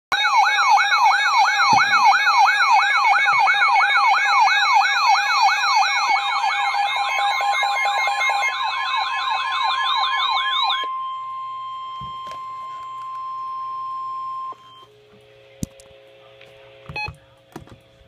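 Weather radios sounding their alert for a flash flood warning: a loud warbling siren sweeping up and down about twice a second, then, about eleven seconds in, a single steady tone that cuts off a few seconds later, followed by a few faint clicks.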